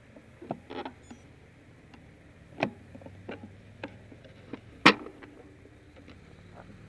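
Scattered sharp clicks and knocks close to a bicycle's handlebar-mounted camera, the loudest about five seconds in, with another strong one about two and a half seconds in.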